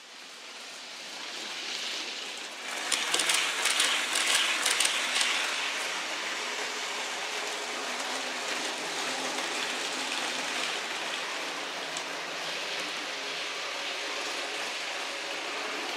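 N-scale model trains running on the layout, among them a BLS Re 485 model locomotive hauling container wagons: a steady rolling hiss of small wheels on the rails with a faint motor hum. The sound swells in over the first couple of seconds and peaks with a flurry of rapid clicks about three to five seconds in.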